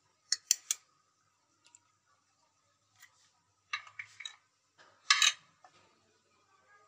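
Eggs being cracked into a glass bowl: three quick sharp taps of eggshell just after the start, more cracking about four seconds in, and a louder knock about five seconds in.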